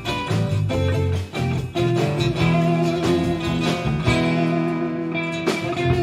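Live band playing an instrumental passage: electric and archtop guitars over bass guitar and a drum kit.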